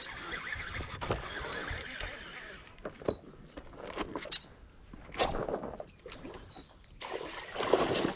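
A hooked bowfin (dogfish) splashing at the surface close to the shore as it is fought in on a baitcasting rod, several separate splashes over a steady outdoor hiss.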